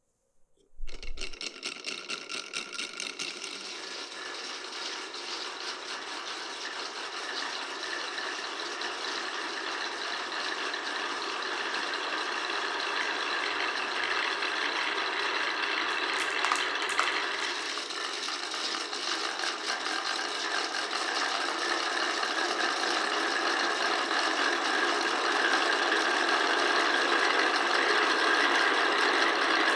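Many glass marbles rolling and clattering down a wooden marble run, a continuous rattle that starts suddenly about a second in and grows steadily louder.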